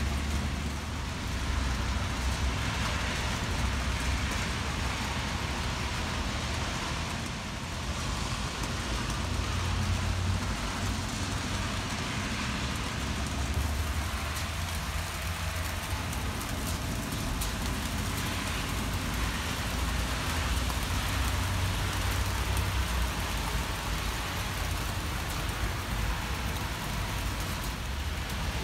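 Heavy rain falling steadily, a constant hiss, over a low, uneven rumble.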